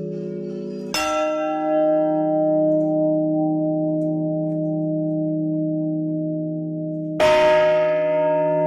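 Church bells in the belfry tolled by hand: two single strikes about six seconds apart, each followed by a long, many-toned ringing hum that overlaps the last. This is the traditional slow funeral toll.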